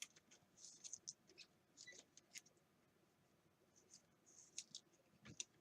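Faint handling of trading cards: soft swishes of card stock sliding and light clicks, coming in small scattered groups.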